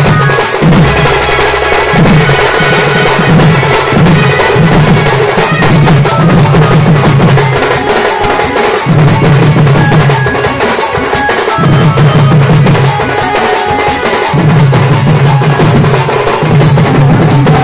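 Sing bajna drum band: several barrel drums beaten with sticks in a fast, loud, dense rhythm. A low sustained tone comes and goes under the drumming.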